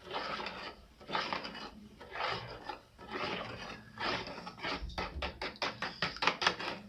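A utensil stirring a wet mixture of milk, eggs and melted margarine in a bowl. The strokes come about once a second at first, then speed up to several quick strokes a second about four and a half seconds in.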